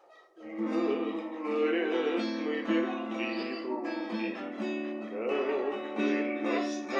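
Acoustic guitar strumming chords, starting about half a second in after a brief quiet: the accompaniment restarting from the top of a song.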